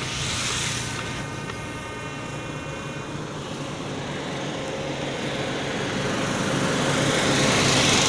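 Road traffic: vehicle engine noise, a steady low drone with a faint high whine in the first few seconds, growing louder over the last three seconds as a vehicle comes closer.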